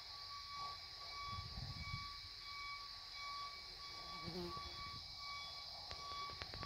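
Faint background ambience: a steady high-pitched hiss, with a faint beeping tone repeating under a second apart. A few soft low thumps come about a second and a half in, and some light clicks near the end.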